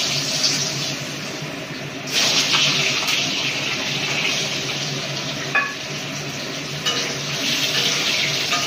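Raw potato wedges sizzling in hot oil in an aluminium kadai. The sizzle surges as more pieces are dropped in, about two seconds in and again near seven seconds. A brief metallic clink sounds in the middle.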